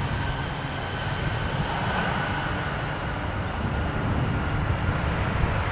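Airbus A320 jet engines running as the airliner rolls out along the runway after touchdown: a steady low rumble with a faint steady whine.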